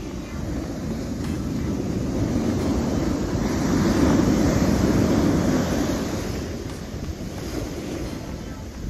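Atlantic Ocean surf: a wave builds, breaks and washes up the beach, loudest about halfway through and then easing off, with wind on the microphone.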